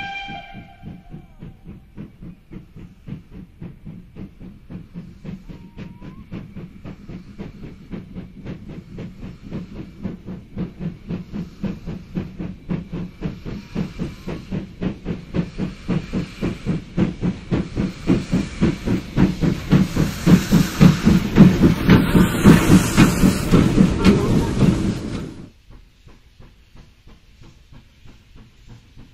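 Two steam locomotives double-heading a passenger train, working hard with rapid, even exhaust chuffing that grows steadily louder as they approach and pass; the tail of a steam whistle fades in the first second. Near the end it gives way abruptly to the fainter chuffing of another steam engine hauling a goods train.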